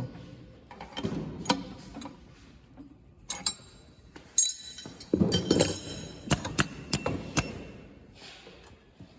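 Irregular metal clicks, knocks and clinks of tools and machine parts being handled, with a cluster of ringing clinks about halfway through, as the wire stripping and cutting unit of a semi-automatic USB cable soldering machine is adjusted.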